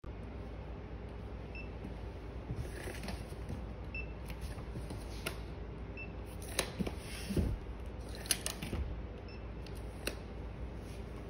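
Four short, high electronic beeps a couple of seconds apart as a handheld measuring set captures each reading of a parcel's dimensions and weight. Sharp clicks and knocks from handling the measuring tape and the box come in between, over a steady low hum.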